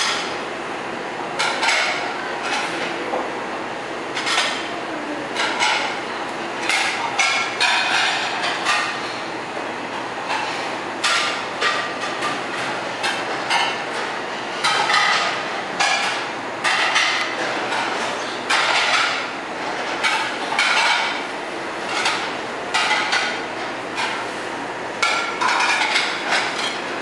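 Irregular knocking and clattering, a sharp burst every second or so, over a steady low background hum.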